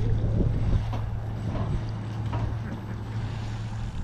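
Wind buffeting the microphone over a steady low hum.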